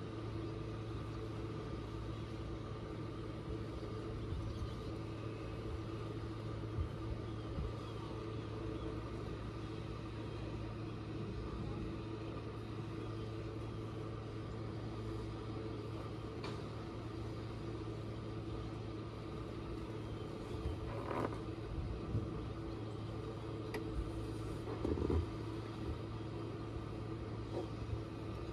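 Small boat's engine idling, a steady low hum, with a couple of light knocks near the end.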